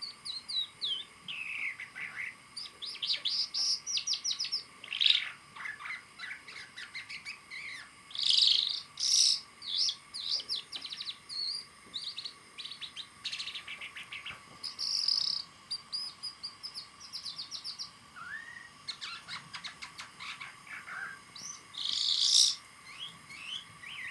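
A songbird singing a long, varied song of quick chirps, rapid trills and short whistled notes, with a few louder calls scattered through it.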